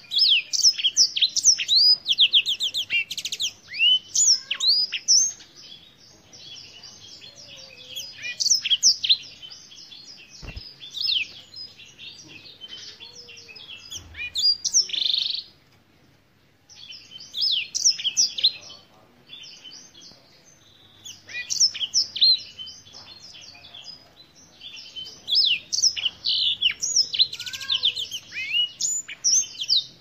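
Black-throated canary singing: bursts of quick, high, sweeping notes and rapid trills, broken by short pauses of a second or two.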